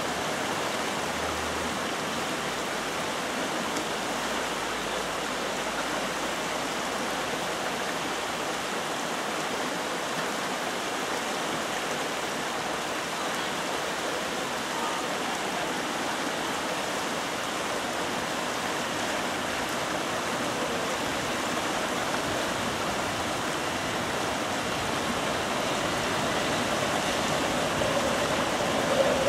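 Shallow, rocky river rapids rushing steadily over boulders. In the last few seconds a train's running sound begins to rise over the water.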